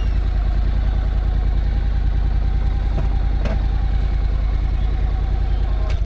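Motorcycle engine idling steadily, heard close up, with a strong low note.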